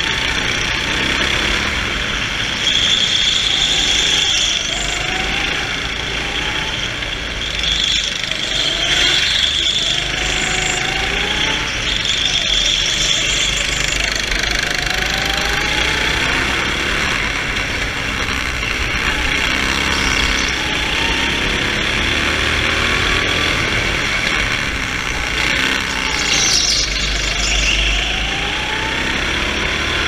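Go-kart engine at full throttle, its pitch climbing again and again as it accelerates out of each corner and dropping back as it slows into the next, over a steady hiss of rushing air.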